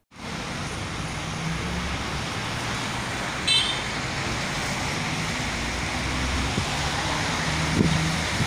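Road traffic and wind noise on the open upper deck of a moving double-decker bus, over the bus engine's low steady hum. A brief horn toot sounds about three and a half seconds in.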